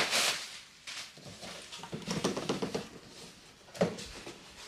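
Plastic air-pillow packing crinkling as it is pulled out of a long cardboard shipping box, loudest at the start, then softer rustling and handling of the box with a single knock near the end.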